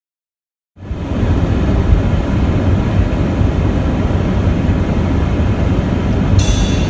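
Steady low rumble of a moving car's road and engine noise heard from inside the cabin, cutting in suddenly about a second in. Music starts near the end.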